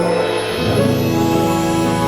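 Instrumental music with held chords and no singing; a new low bass note comes in about half a second in.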